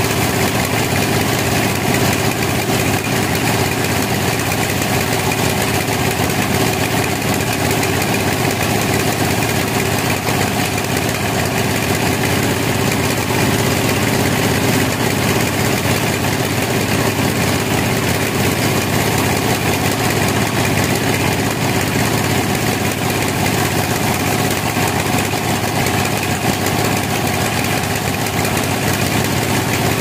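Large band sawmill running steadily, its blade sawing through a log as the carriage feeds it.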